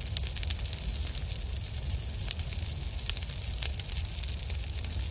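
Fire sound effect: a steady low rumble of flames with scattered crackles.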